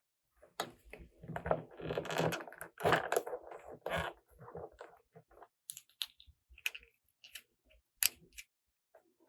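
Small plastic toy pieces and packaging handled close up: a stretch of rustling and crinkling, then scattered sharp clicks and taps in the second half.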